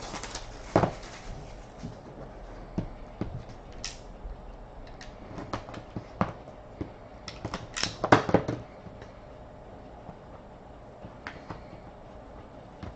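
Hockey card box and packs being opened and handled: scattered clicks and crinkles of cardboard and wrapping, with a busier cluster of handling about eight seconds in.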